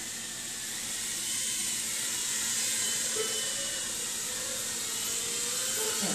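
Micro FPV racing quadcopters flying, their tiny motors and propellers making a high-pitched buzzing whine whose pitch wavers with throttle. It grows a little louder about a second in.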